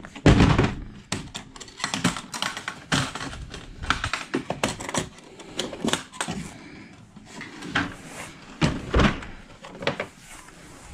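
Irregular clicks and knocks from the plastic case of a Craftsman wrench-and-socket set being handled and opened, with heavier thumps just after the start and about nine seconds in.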